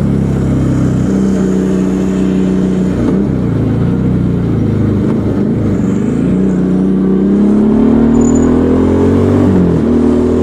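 Motorcycle engine and exhaust running under way, its note dipping and rising again a few seconds in, then climbing steadily before dropping sharply near the end.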